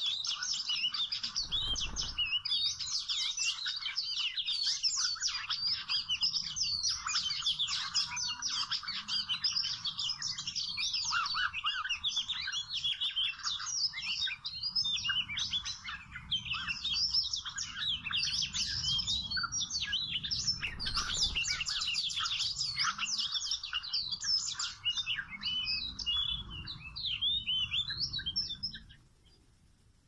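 Oriental magpie-robin song: a dense, varied run of quick whistles and chirps that breaks off abruptly just before the end.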